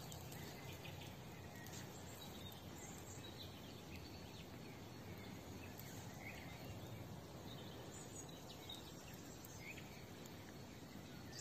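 Faint outdoor ambience: a steady low hiss with a few scattered, distant bird chirps.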